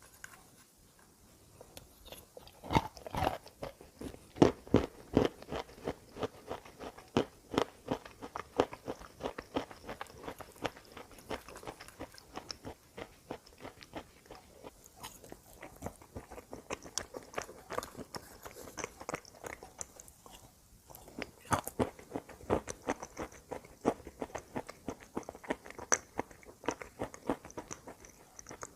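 Close-up bites and chewing of chalk and dried clay: a rapid, irregular run of dry crunches and snaps, with a brief lull about two-thirds of the way through.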